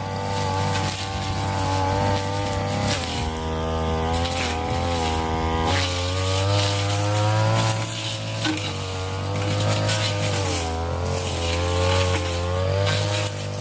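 Two-stroke brush-cutter engine running hard, its pitch wavering up and down as the revs rise and dip.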